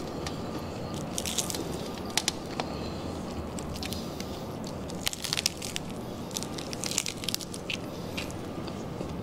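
Crispy skin of a deep-fried pork leg (crispy pata) crackling as it is pulled apart by hand, in short clusters of sharp crackles over a steady background noise.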